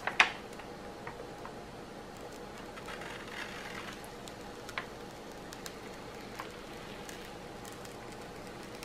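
Faint rustling of the release paper being peeled slowly back from a glue-coated diamond painting canvas, with a sharp click just after the start and a few light ticks over a quiet room hiss.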